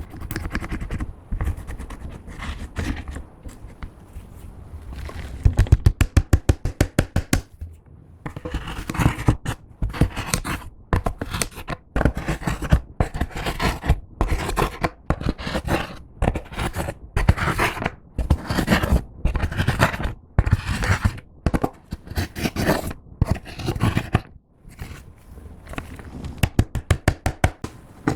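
Clear slime being kneaded, pressed and stretched by hand as makeup is worked into it, giving quick runs of sticky clicks and crackles, with a fast rattle of clicks a few seconds in.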